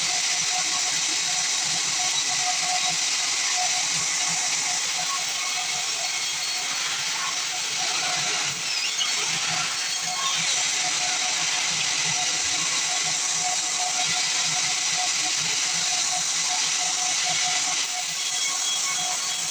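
Sawmill band saw sawing pine: a steady high-pitched hiss from the blade, with an even machine hum under it.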